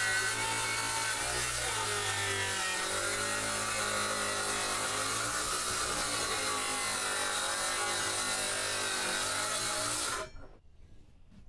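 DeWalt circular saw cutting through a sheet of plywood along a track guide, its motor pitch wavering under load. The sound cuts off about ten seconds in as the cut finishes, leaving a few faint ticks.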